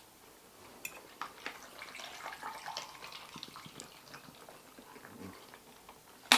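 Faint eating sounds: chewing and mouth smacks with light clicks of a metal fork against a plate.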